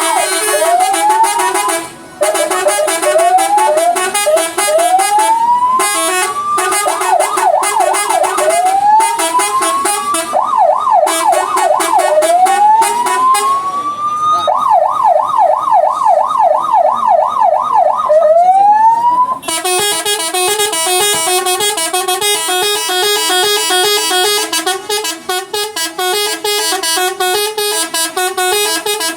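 Bus horns in a horn battle: a siren-effect horn sounding repeated rising whoops and fast warbling wails, then about twenty seconds in a switch to a multi-note 'telolet' horn playing a rapid stepped tune.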